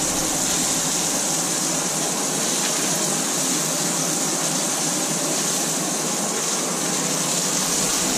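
Beef burger patties frying in a pan, a steady high hiss of sizzling fat.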